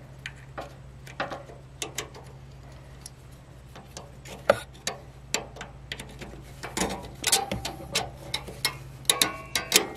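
Small metal brake parts of a lawn tractor (bolt, coil spring, bracket) clicking and clinking as they are fitted together by hand. Scattered light ticks grow busier in the last few seconds, over a steady low hum.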